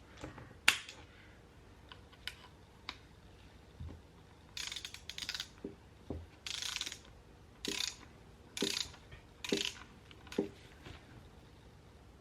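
Socket ratchet wrench worked in short strokes on an engine bolt: a sharp metallic click near the start, then about seven short bursts of ratchet clicking roughly a second apart from about four seconds in.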